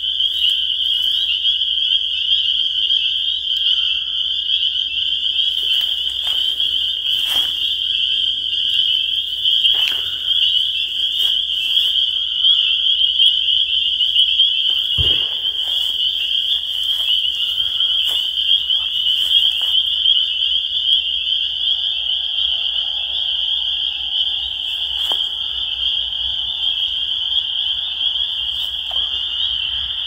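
A dense, steady chorus of spring peepers, many high peeps overlapping into one continuous shrill ring.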